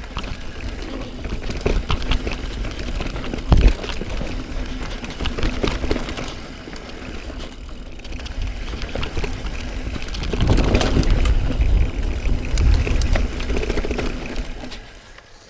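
Mountain bike descending a dirt downhill trail: tyres rolling and the bike rattling over the ground with a steady buzz, and one hard thud about three and a half seconds in. The sound grows louder and rougher past the middle, then drops off suddenly near the end.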